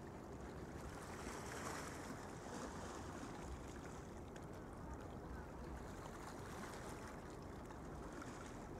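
Faint, steady outdoor background noise: a low rumble with a soft hiss over it and no distinct events.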